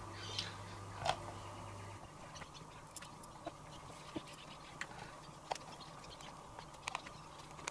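Small screws being driven into a plastic instrument case with a hand screwdriver: faint, scattered clicks and scrapes.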